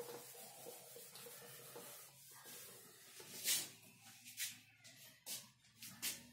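Faint rubbing of a whiteboard being wiped clean by hand, followed by about four short, sharp noises between three and six seconds in.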